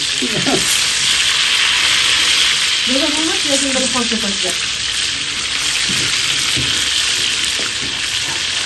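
Food frying with a steady sizzle.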